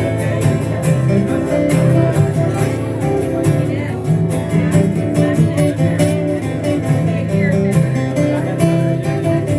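Instrumental break in a country-rock song played by a small band, with strummed acoustic guitar keeping a steady beat.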